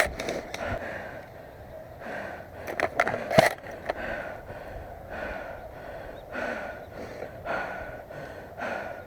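A person breathing hard in repeated puffs about once a second, with movement noise and a few sharp clicks around three seconds in.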